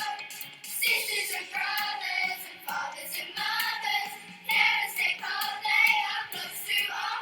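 A song with children singing over instrumental accompaniment, in short sung phrases.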